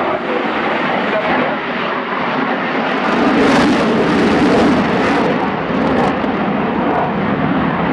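Eurofighter Typhoon's twin EJ200 turbofan jet engines at high power in afterburner during a display pass: a loud, continuous jet noise that swells with a hissing edge about three seconds in and eases after about five seconds.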